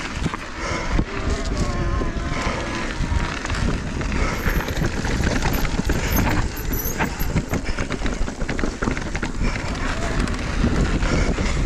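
Mountain bike ridden fast over a dirt and rock trail: wind rumbling on the microphone, tyre noise on the ground, and frequent rattles and knocks from the bike over rough ground.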